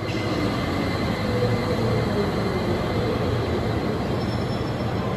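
A Uijeongbu U Line light-rail train, a rubber-tyred Siemens VAL 208, running at the station platform: a steady, loud rush of running noise with a faint whine over it.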